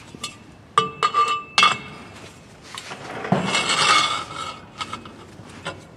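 Steel hand tools and parts clinking and clanking as a freshly loosened sway bar mounting bolt is worked free: a few sharp, ringing metallic knocks about a second in, then a longer scraping rattle around three to four seconds in, and a couple of lighter clicks near the end.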